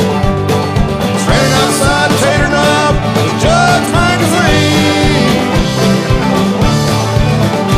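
Country-punk rock band playing a fast instrumental passage: a steady drum beat under electric guitar with bending, sliding notes.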